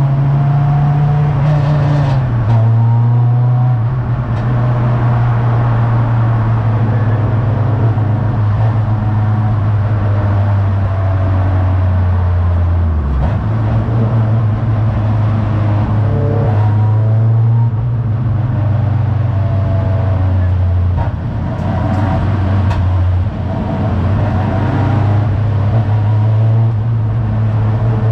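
Race car's engine heard from inside its stripped cabin, running hard under load, its pitch stepping down and back up several times as the car shifts and lifts through corners, with a deep drop about thirteen seconds in before it picks up again.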